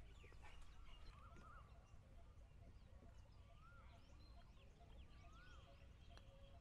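Quiet outdoor background: a bird repeats a short rising-and-falling whistle every second and a half or so, with other faint chirps, over a low steady rumble.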